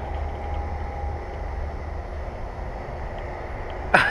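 Steady low rumble of distant highway traffic, with a faint steady tone running through it, and a sharp click right at the end.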